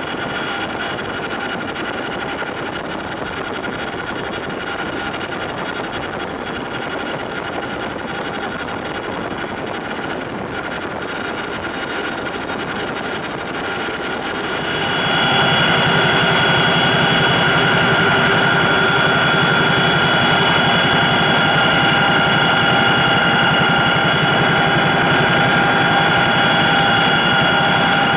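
Cabin noise inside a CH-47J Chinook tandem-rotor helicopter in flight: a loud, steady drone with several steady high-pitched whines on top. About halfway through it steps up louder and the whines grow stronger, then holds steady.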